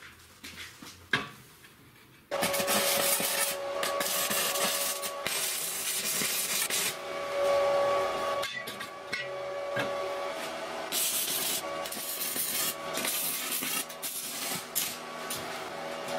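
A single metal knock about a second in, then welding on steel square tubing starts suddenly about two seconds in: a loud, steady rasping hiss with a faint hum, broken by short pauses between welds.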